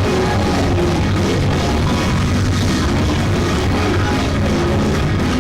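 Loud, up-tempo live band music with drums, bass and guitar.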